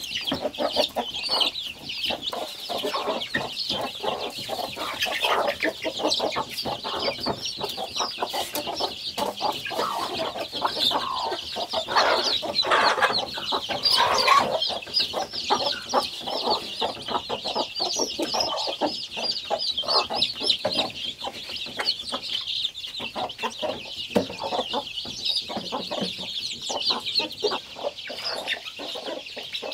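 A brood of young chicks peeping continuously in a dense, high chorus, with hens clucking lower beneath them.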